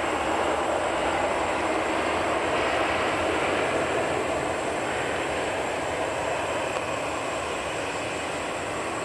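Airbus A320-200 jet engines during landing rollout on the runway: a steady roar, a little louder in the first half and easing slightly as the airliner slows.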